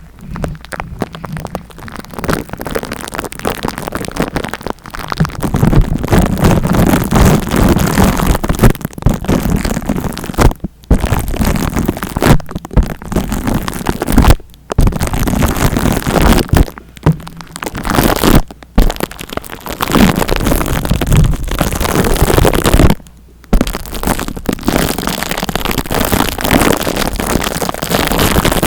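Close-miked ASMR rubbing and scratching right on the microphone, a dense crackling noise in the style of a scalp massage, broken by a few brief pauses.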